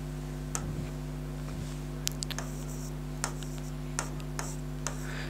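A steady low electrical hum with about nine faint, irregular clicks and taps scattered through it.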